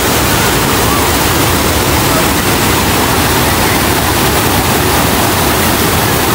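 Water pouring over a barrage weir and churning below it: a loud, steady rush, with faint voices of bathers in the background.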